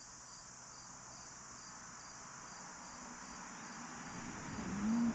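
Insects chirping steadily in a high, evenly pulsing trill. Near the end a louder sound rises over it, with a short low hum-like tone.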